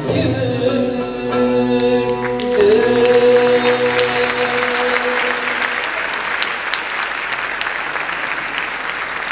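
A woman singer and a Turkish classical music ensemble hold the final sustained note of a song, which dies away about five seconds in. Audience applause breaks in about two seconds in and goes on alone after the music stops.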